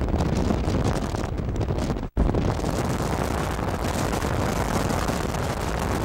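Steady rush of wind and road noise from a moving car, with heavy low wind buffeting on the microphone. It breaks off for an instant about two seconds in.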